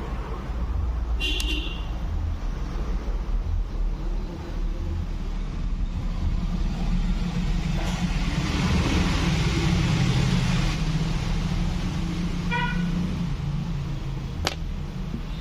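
Road traffic rumbling steadily, swelling as a vehicle passes about eight to eleven seconds in, with two short horn toots, one a second or so in and one near the end, and a sharp click just before the end.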